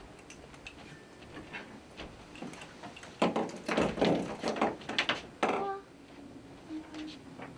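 A string of fairy lights clattering and knocking against a wooden floor as it is handled. A dense run of clatter starts about three seconds in and lasts a little over two seconds.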